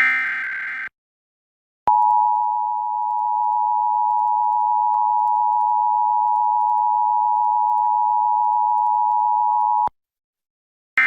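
Emergency Alert System transmission: a burst of screechy SAME header data tones, then after a second's silence the EAS two-tone attention signal, held steadily for about eight seconds and cut off abruptly. After another second of silence, another short data-tone burst begins right at the end.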